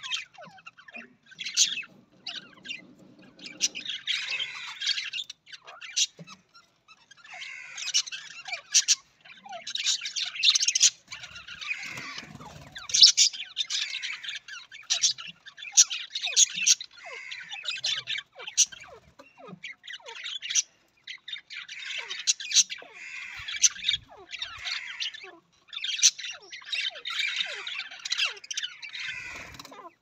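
A flock of budgerigars chattering and warbling, with many sharp chirps and squawks mixed in. It comes in bursts with brief pauses between them.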